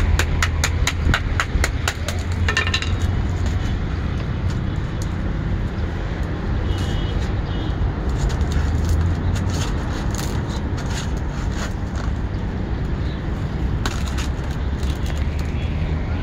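Rapid knocking of a flat wooden paddle against the cane reeds of a handmade mora stool frame, several knocks a second for the first two seconds, then scattered clicks and rattles of the reeds being handled. A steady low rumble runs underneath.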